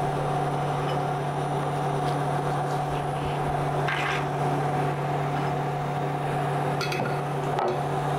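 Peanuts frying in hot oil in a stainless-steel kadhai with a light sizzle, under a steady appliance hum that is the loudest sound. About four seconds in, a handful of peanuts is dropped into the oil.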